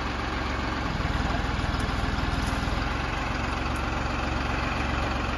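A heavy machine's engine running steadily with an even low throb, a little louder from about a second in.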